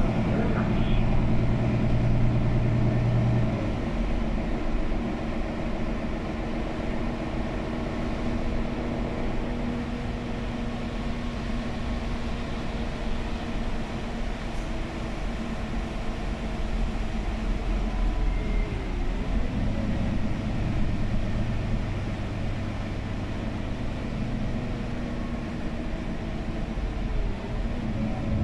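Inside a 2013 Mercedes-Benz Citaro O530G articulated bus with a Voith automatic gearbox, under way: a steady engine and drivetrain drone with road noise. The low engine note drops away about three and a half seconds in and comes back strongly near twenty seconds.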